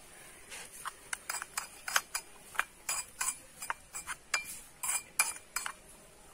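A small metal spoon clinking and scraping against the inside of a miniature aluminium pot while stirring, in quick irregular taps about three a second. The taps start about half a second in and stop near the end.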